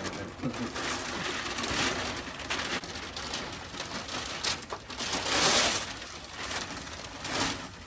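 Packaging being opened and unwrapped, in repeated bursts of rustling and crinkling, loudest about five to six seconds in.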